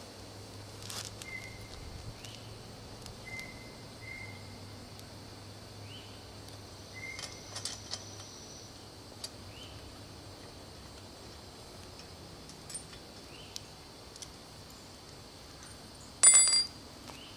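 Hand tools working a Campagnolo bicycle crank as its outer cap ring is unscrewed from the crank arm: a few light metallic clicks, then a louder short clatter about 16 seconds in. A short high chirp repeats every second or two in the background.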